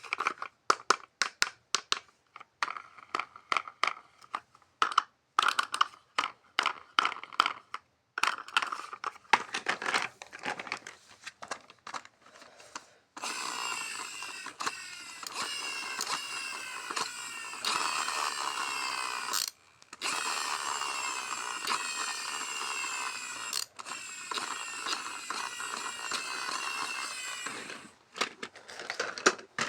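Rapid clicking and clattering of handled plastic toy parts, then a small toy motor whirring steadily for about fifteen seconds, cut off briefly twice.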